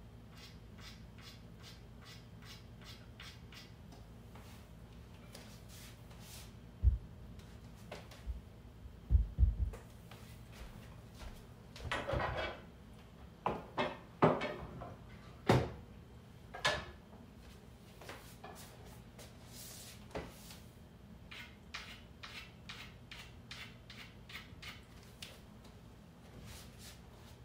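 Handling noises around a pool table: a few dull thumps about a quarter and a third of the way in, then a run of sharper knocks and clicks over the next few seconds, with fainter ticks later, all over a low steady hum.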